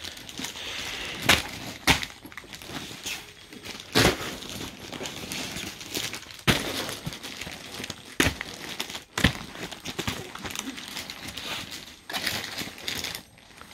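Rustling and crinkling of garment packaging and cloth being handled, broken by a few sharp, irregular crackles and snaps.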